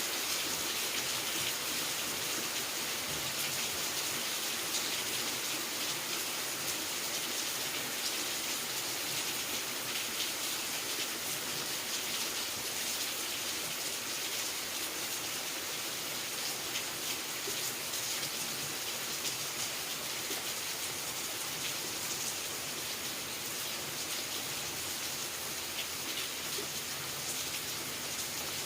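Steady rain falling: an even hiss peppered with fine, scattered drop ticks.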